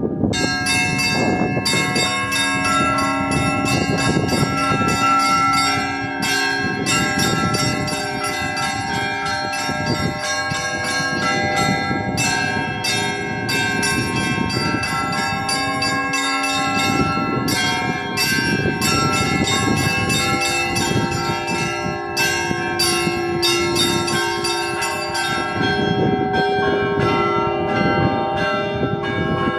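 Russian Orthodox church bells rung together in a continuous festive peal (kolokolny zvon). Small high bells are struck in quick succession over deeper bells whose tones hang on.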